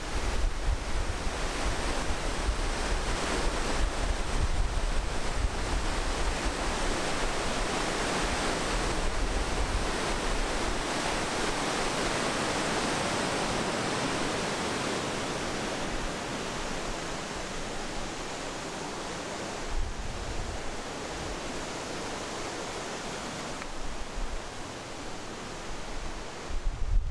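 Steady rush of white-water rapids in a mountain river, loudest around the middle and fading toward the end. Wind buffets the microphone in the first few seconds.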